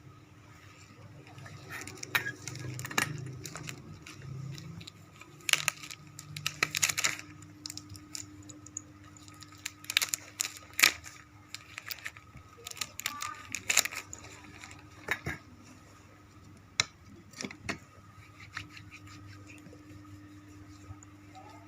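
Nursing equipment being gathered and put away: a run of clicks, knocks and light clatter of small objects set down and handled, with the loudest clusters about a third of the way in and near the middle.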